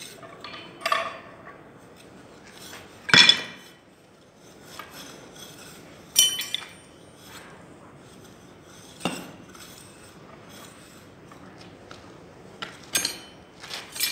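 Small metal hand shovel scooping and turning over damp molding sand, with irregular scrapes and sharp metallic clinks every few seconds, one of them ringing briefly.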